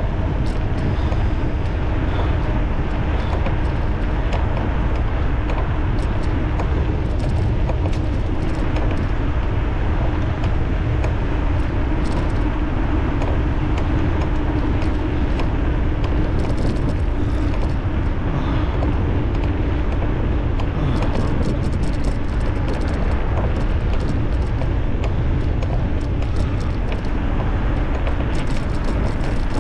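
Steady wind rumble on the microphone of a moving electric bicycle, loud and heaviest in the low end, with a faint steady tone underneath.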